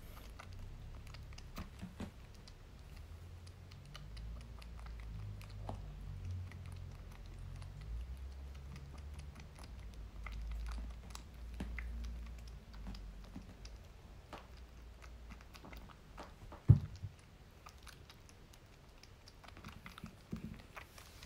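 Kitten suckling and chewing at a milk bottle's teat: a run of small, rapid wet clicks and smacks, with one sharp louder knock about three-quarters of the way through.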